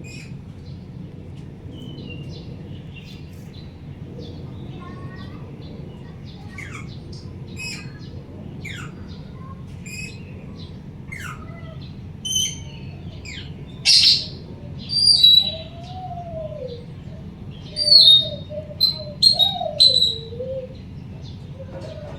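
A puling songbird calling: a run of quick, high falling whistles, then louder sharp calls in the second half with lower, wavering whistled notes among them. A steady low hum runs underneath.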